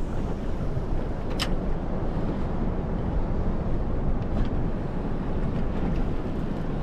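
Steady wind rumble on the microphone over the open sea and boat, heaviest in the low end, with a single short sharp click about a second and a half in.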